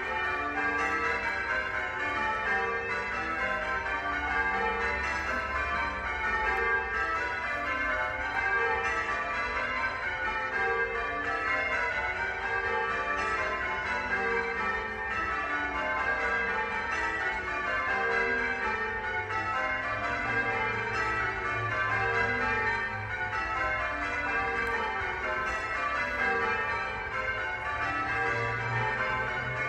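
Church bells ringing without pause, several bells struck in quick succession so that their tones overlap and ring on into one another.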